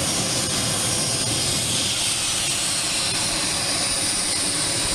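Fixed-wing aircraft's engines running at high power for departure, a steady loud rushing roar.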